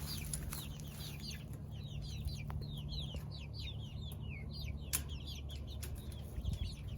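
Chickens calling: a run of short, high falling notes, several a second, over a low steady hum.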